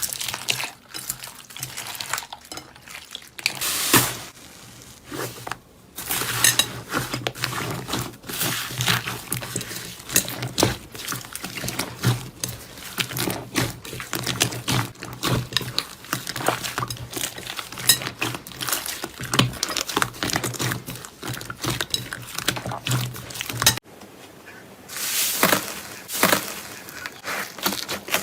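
Slime being squished and worked by hand, giving a dense, uneven run of sticky clicks and pops. The sound breaks off briefly about four-fifths of the way through and then carries on with a different texture.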